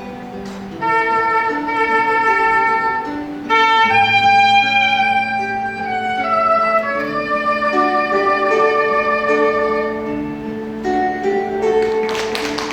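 Soprano saxophone playing a slow melody of long held notes over a recorded backing track with guitar and bass. Applause breaks out near the end as the piece finishes.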